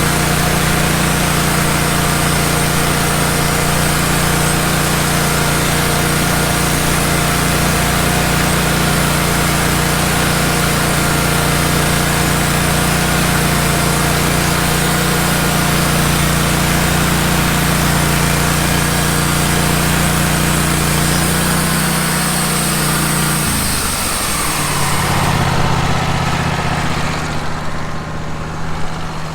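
Wood-Mizer LT15 band sawmill running: a steady engine drone under a high hiss. Near the end the pitch falls and the hiss fades as the mill drops to a lower, steady idle.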